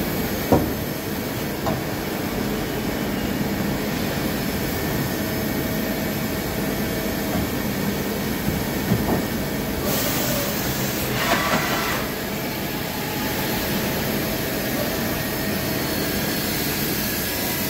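Steady mechanical running hum of machine-shop equipment. A few light knocks and a hiss of about two seconds near the middle sound over it.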